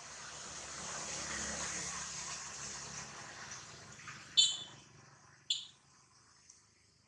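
A motor vehicle passing by, its noise swelling and fading over the first few seconds. Then two short, high-pitched chirps about a second apart.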